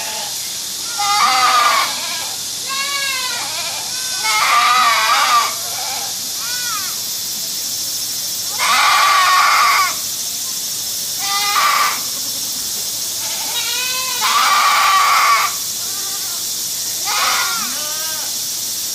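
Goats bleating over and over, about nine calls spread across the stretch. Some calls are long, loud and steady in pitch, others shorter with a wavering pitch, over a steady background hiss.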